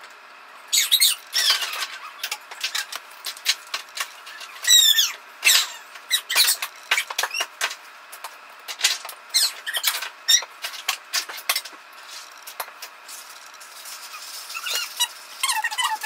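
Scissors cutting construction paper while the sheets are handled: irregular crisp snips, rustles and crackles, with a squeaky scrape about five seconds in.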